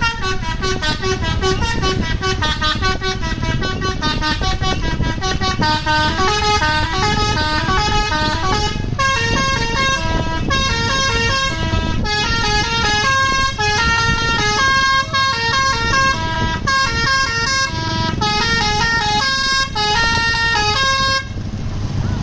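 A bus's telolet (basuri) multi-tone musical horn plays a long, fast melody of short stepped notes over the engine's low rumble. The notes come quicker in the first half and more clipped and spaced in the second, and the horn cuts off suddenly near the end.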